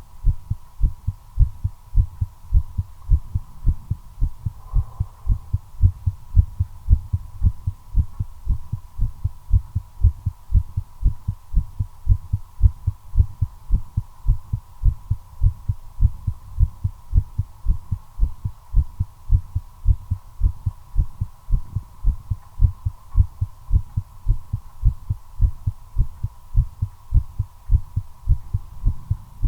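Human heartbeat heard close up at the chest: a steady, regular run of low lub-dub thumps. It is quickened by the nicotine of a cigarette being smoked. A faint steady high hum runs underneath.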